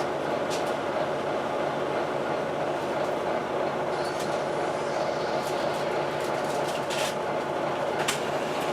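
Volvo B9TL bus running with the steady drone of its engine cooling fan, the vacuum-cleaner-like 'hoover' sound these buses are known for, over engine and road noise. A few light clicks or rattles come near the end.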